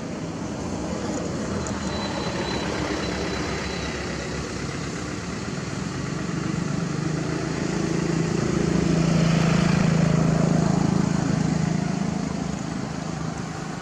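A motor vehicle's engine and road noise passing by, growing louder to a peak about ten seconds in and then fading away.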